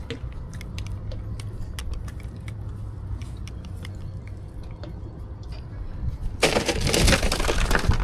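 Ice clattering and crunching as a fresh-caught fish is put into an ice-filled cooler: scattered small clicks and crackles over a low hum, then a loud crunching, rattling burst for the last second and a half.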